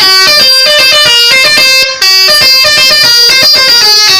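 Bus telolet horn playing a fast tune, very loud, its pitched notes stepping quickly up and down, with a brief break about two seconds in.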